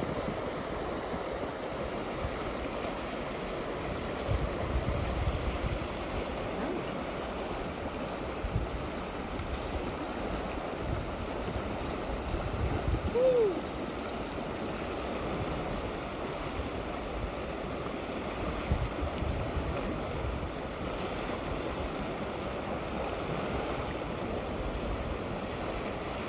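Potomac River current rushing steadily as an even water noise, with scattered low rumbles. About halfway through comes a short rising-and-falling tone, the loudest moment.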